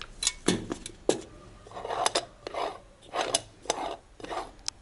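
Short scraping and clinking strokes of metal handling, several in a row from about two seconds in: an aluminium moka pot's top being twisted onto its base and the pot handled.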